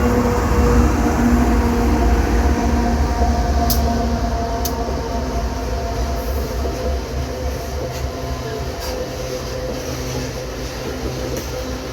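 Loaded iron-ore freight train rolling by: a steady low rumble with a humming engine tone, and a few sharp metallic clicks from the wheels on the rails. It grows slowly quieter.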